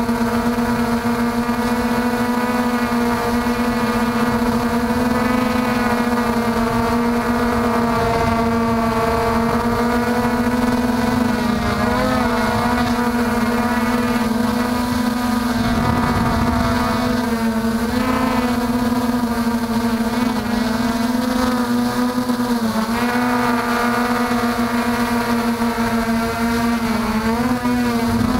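MJX Bugs 3 brushless quadcopter's motors and propellers whining steadily, heard close up from a camera mounted on the drone. The pitch wavers up and down a few times as the throttle changes.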